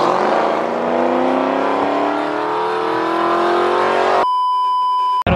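Car engine accelerating hard in one long pull, its pitch rising steadily for about four seconds. Near the end a steady one-second bleep tone cuts in over it and stops abruptly.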